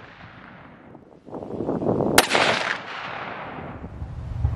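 A single shot from a .308 Winchester rifle firing a 150-grain Barnes TSX handload about two seconds in: a sharp crack followed by a trailing echo.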